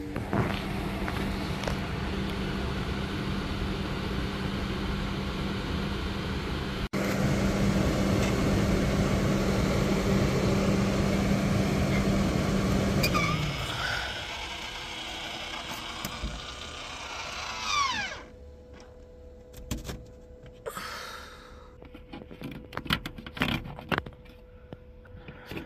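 MaxxAir roof vent fan running on high, a steady rush of air with a motor hum. About halfway through it drops in speed, then winds down with a falling whine and stops, followed by a few light clicks and knocks.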